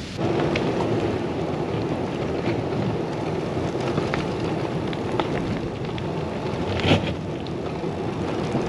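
Wind buffeting the microphone as a steady rushing noise, with scattered light clicks and rattles and a sharper knock about seven seconds in.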